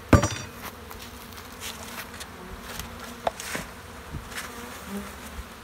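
Honey bees buzzing steadily as a dense mass over an open hive during a package installation. A sharp knock comes right at the start, and two lighter taps follow about three and a half seconds in.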